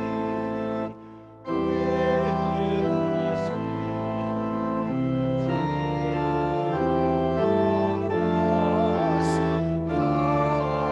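Organ playing a hymn in sustained chords, the chords changing every second or so, with a brief break about a second in.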